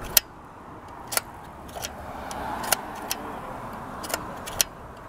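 Vintage 1950s View-Master clicking as its reel is advanced, about seven sharp clicks at uneven intervals, over steady street traffic. A vehicle passes about two to three seconds in.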